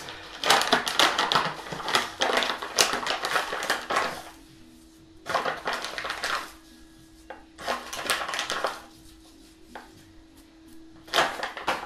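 Plastic seasoning bags crinkling in bursts as they are handled and shaken over a stainless steel bowl.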